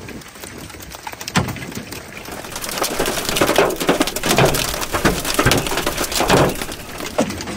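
Hail pelting a vehicle: a rapid, irregular patter of hard hits on the body and windows, much denser from about two seconds in.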